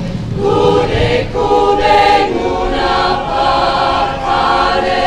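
A choir of mostly women's voices singing together in harmony. The chords are held in short phrases of about a second each, with brief breaks between them.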